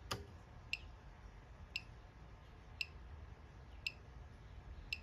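Faint, short high-pitched beeps about once a second from a VDIAGTOOL V200 Pro circuit probe: the tone it gives each time it refreshes its frequency reading. A single click just after the start as the range switch of a Hewlett-Packard 3310B function generator is turned.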